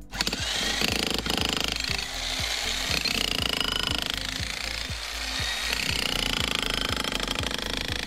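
Einhell 15 kg 1600 W electric demolition hammer hammering its chisel into a concrete path, starting at once and running hard. Background music with a steady low beat plays underneath.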